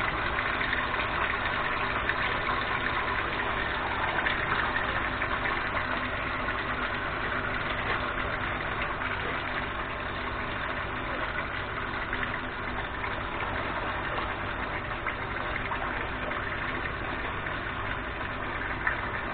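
Raw beef chunks sizzling steadily in hot oil in a kazan, just after going into the pan; the sizzle eases slightly over time.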